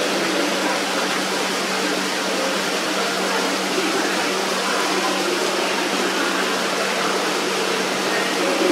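Steady rushing background noise with a constant low hum: the room ambience of an aquarium, from its water and air machinery. No frog call is heard.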